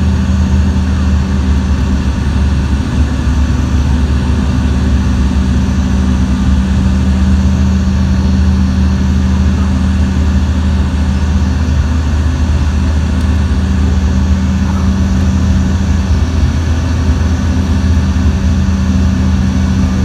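Steady, loud drone of an airliner's engines heard from inside the passenger cabin, a constant low hum with no change in pitch.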